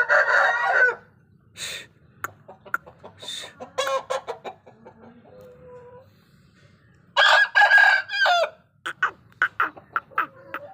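Aseel rooster crowing twice, once at the start and again about seven seconds in, with short clucking calls from the chickens in between and toward the end.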